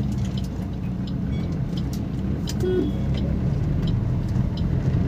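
Maruti Suzuki Swift's 1.3 DDiS four-cylinder turbodiesel engine running steadily while driving, heard from inside the cabin together with road noise, getting slightly louder.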